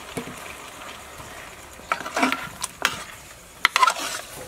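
A metal spoon stirring fish heads in a metal cooking pot, with a run of scrapes and clinks against the pot starting about halfway through. A faint sizzling hiss from the frying sits underneath.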